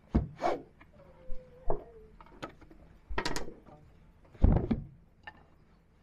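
Wooden weaving sword of a backstrap loom being knocked against the weft to pack it tight: a series of irregular wooden knocks and clatters, the loudest about four and a half seconds in.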